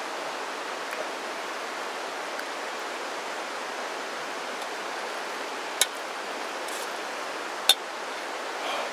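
Steady rush of a stream, with two sharp metallic clinks of a fork against a steel camp pot about two seconds apart.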